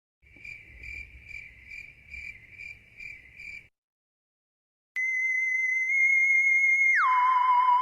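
Sound effects: a high, cricket-like chirp pulsing about two and a half times a second for a few seconds. After a short pause comes a steady whistle-like tone that drops sharply to a lower, wavering pitch near the end.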